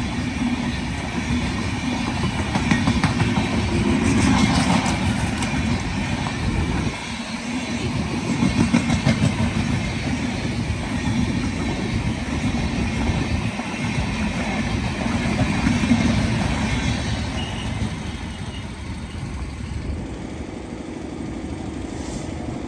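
LHB passenger coaches of an express train rolling past at speed: a loud, continuous rumble of steel wheels on the rails with rushing air noise, dipping briefly as coach gaps go by. Near the end the rush dies away, leaving a steadier low hum.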